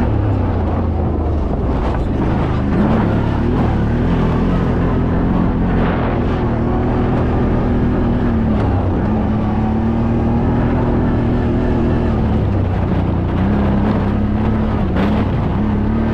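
ATV engine running loudly under way, its note dipping and picking back up a few times as the throttle is worked, over a steady low rumble. A few brief knocks come through.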